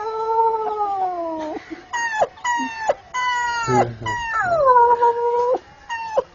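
A person imitating a dog crying: a long falling howl, a run of short high yelping whimpers, then a second howl that drops and holds before more short yelps.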